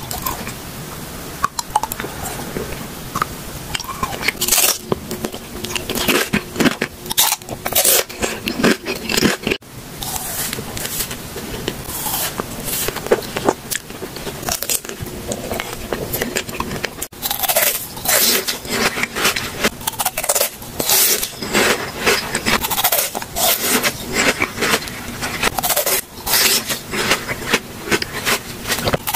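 Close-miked ASMR mouth and eating sounds: rapid crunching, biting and chewing with sharp wet clicks, several a second.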